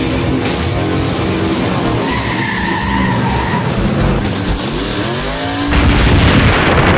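Sound effects of the DeLorean time machine: an engine revving with rising and falling pitch and tires squealing as the car speeds off, then a sudden loud rushing boom near the end as it breaks into time travel.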